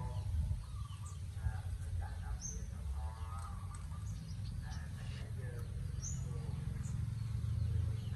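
Birds chirping a few short high notes, about two and a half and six seconds in, with faint squeaky calls in between, over a steady low rumble.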